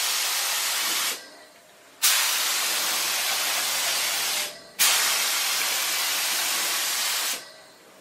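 Gravity-feed paint spray gun hissing as compressed air sprays paint onto car body panels, in three passes with short gaps between them.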